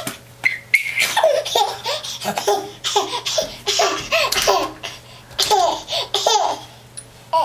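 Baby laughing in many short, high-pitched bursts.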